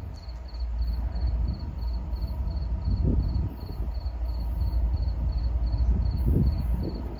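A steady low rumble with gusty swells, and over it a thin high insect chirp repeating evenly about two to three times a second.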